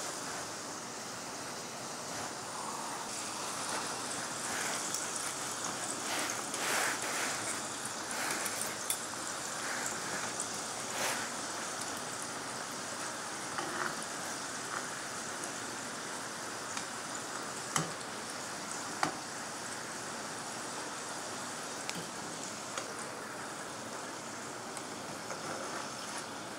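Crostoli dough strips deep-frying in hot oil, a steady sizzling hiss. A few sharp clicks are heard as a wire spider skimmer knocks against the pan while the pieces are turned.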